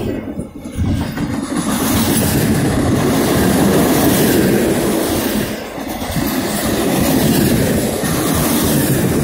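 Freight cars of a passing train rolling by close at speed: steel wheels running on the rails in a loud, continuous rumble.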